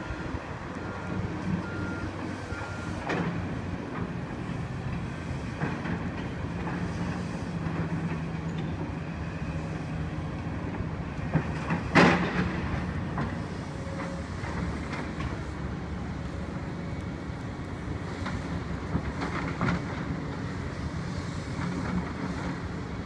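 Construction machinery at work: a steady diesel engine rumble, with a reversing beeper beeping briefly at the start and one sharp, loud metallic clank about twelve seconds in.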